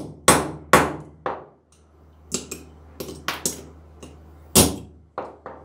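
Hand hammer striking a rusted pair of pliers held against a steel ring, with sharp metal-on-metal blows. Several heavy blows come about half a second apart at the start, then a run of lighter taps, then another heavy blow and two lighter ones near the end.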